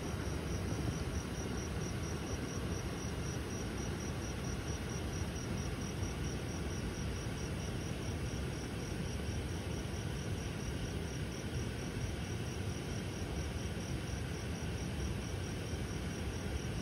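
Insects chirping in an even, rapid pulse, over a steady low rushing noise.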